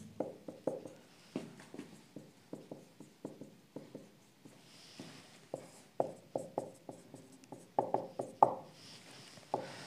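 Marker pen writing on a whiteboard: a run of short, irregular squeaks and taps as letters are drawn, with a brief pause about halfway through.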